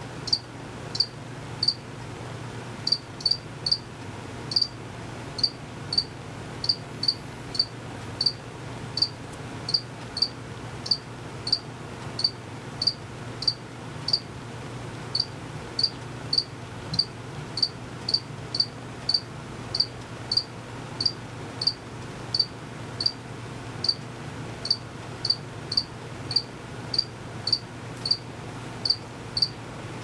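Male cricket chirping: short, high-pitched chirps repeated steadily at a little under two a second, with a couple of brief pauses.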